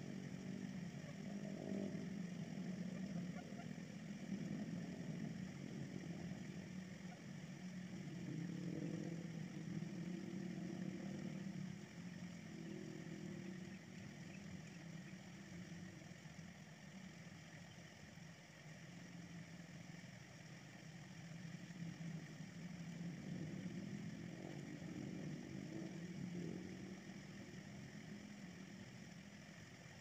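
Steady low hum like an idling engine, swelling and fading slightly.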